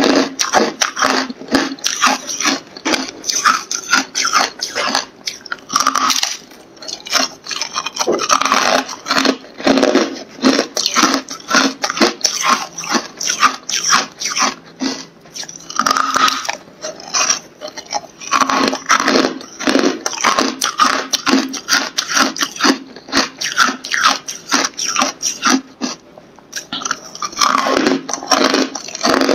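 Carbonated ice being bitten and chewed: loud, rapid, nearly continuous crunching and crackling of the brittle ice, with a few brief lulls between bites.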